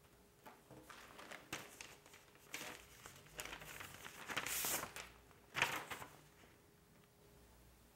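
Paper rustling and crinkling as a manila envelope is handled and opened: a run of irregular rustles, loudest in a half-second burst past the middle and a sharp crackle about a second later.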